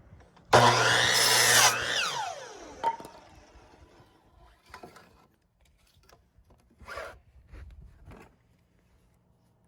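Electric power saw starts about half a second in and cuts through a board, then its motor winds down with a falling whine. A few light knocks follow.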